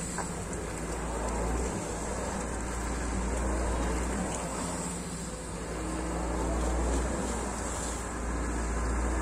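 Sany SY215C hydraulic excavator's diesel engine running steadily while the machine digs, its loudness swelling and easing a few times as the arm and bucket work.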